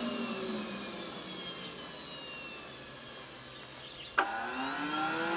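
Wren 75 KPro model jet turbine spinning down with a steadily falling whine. About four seconds in, a sharp click comes, and the starter motor spins the turbine back up with a quickly rising whine that then holds steady.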